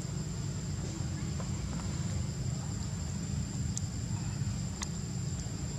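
Outdoor ambience: a steady, high insect drone over a constant low rumble, with two faint ticks about a second apart near the end.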